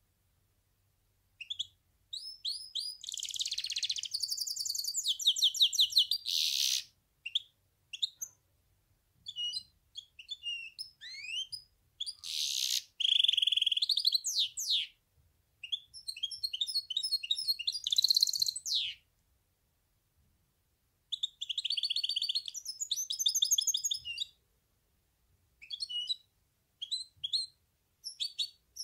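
Goldfinch hybrid (mule) singing: bouts of fast, high trills and twittering phrases with short pauses between them, ending in a few scattered single notes.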